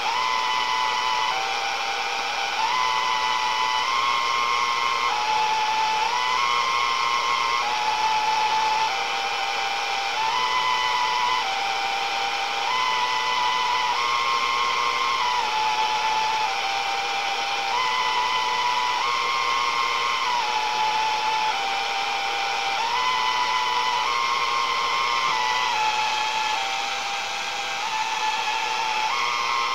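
A radio's speaker playing steady static hiss with a whistling tone over it that steps up and down between a few pitches about once a second, in a repeating sequence.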